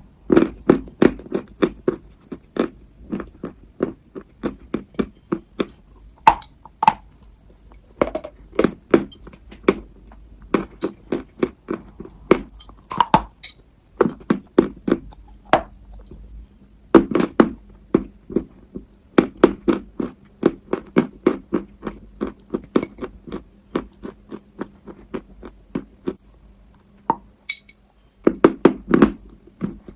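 Close-up crunching as pieces of chalk are bitten and chewed, in runs of sharp crunches about three a second, broken by a few short pauses.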